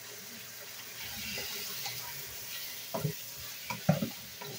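Chopped chicken thigh sizzling in a hot wok. Near the end a wooden spatula stirs it, knocking against the pan a few times.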